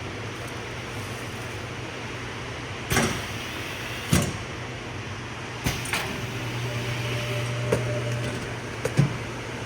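Semi-automatic heat shrink-wrapping machine running with a steady low hum, broken by about six sharp clicks and knocks of its mechanism and the work being handled.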